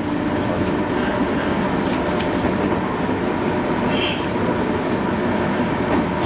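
Meitetsu electric train heard from the cab, rumbling steadily as it runs slowly along a station platform. A brief high squeal sounds about four seconds in.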